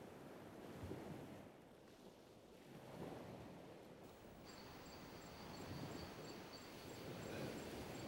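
Faint night-time beach ambience: distant surf swelling and falling away every couple of seconds. About halfway in, night insects join with a thin, steady high trill.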